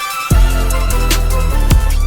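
Background music: electronic music with a heavy bass and deep kick drums, one about a third of a second in and another near the end.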